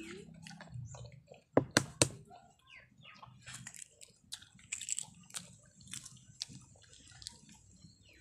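Balut eating at a table: three sharp taps close together about two seconds in, then a run of small clicks and crackles from eggshell being peeled and a spoon on the bowl, with chewing.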